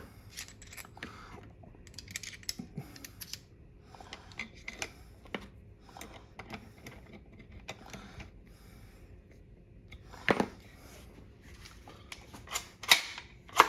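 Small metallic clicks and taps of a replacement charging handle being fitted to a Hi-Point carbine's bolt with an Allen key. A louder metal clack comes about ten seconds in, and a few more near the end.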